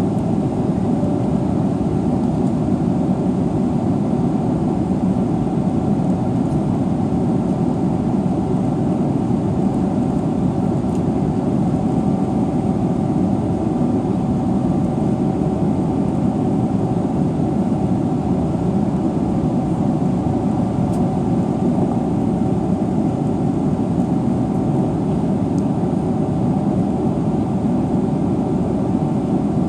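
Steady cabin noise inside a Boeing 777-300ER: an even rumble with a faint steady whine above it.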